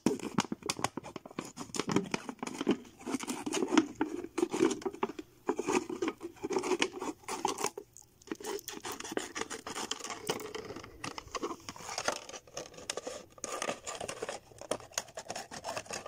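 Scissors cutting through a thin plastic soda bottle: repeated snipping with the crinkle and crackle of the plastic, broken by a short pause about halfway through.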